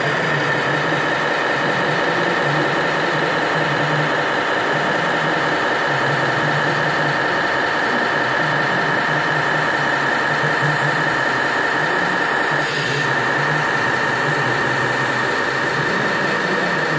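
Steady engine-like idling drone with a constant high whine over it and a wavering low rumble, broken by a brief hiss about three-quarters of the way through.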